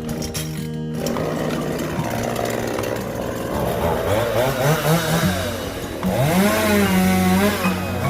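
Two-stroke chainsaw cutting up a fallen walnut tree, its engine revving up and down repeatedly as it works through the wood. Background music fades out about a second in, as the saw starts.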